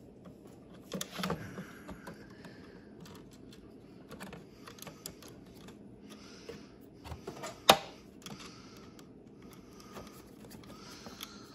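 Scattered light clicks and taps from hands working a CD changer's internal mechanism, with one sharp click about two-thirds of the way through.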